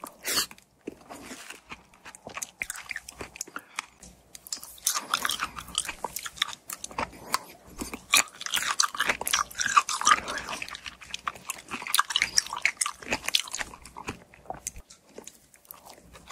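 Close-miked wet chewing and biting of fresh fruit, with crisp crunchy clicks. Sparse at first, it becomes dense and louder from about four and a half seconds in.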